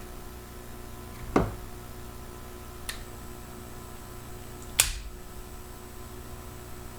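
Three sharp metallic clicks from a Warnant .44 S&W Russian revolver being worked by hand. Two are loud and one between them is fainter.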